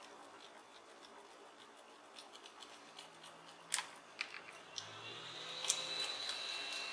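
Faint handling clicks and scrapes as small screws are fastened into a plastic Bluetooth speaker's back plate, a few sharp clicks standing out, the clearest just before four seconds in and near six seconds.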